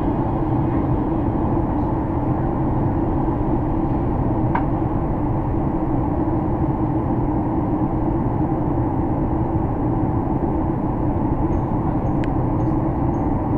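Steady roar inside the cabin of a Boeing 737-800 in flight: airflow and the CFM56 turbofan engines heard from a window seat. A faint click about four seconds in and another near the end.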